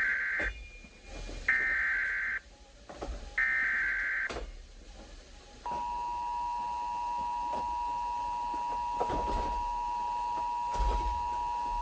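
Emergency Alert System header: three bursts of screechy data tones, each about a second long, then a steady single-pitch attention tone that starts about six seconds in and holds. They mark the start of a severe thunderstorm warning.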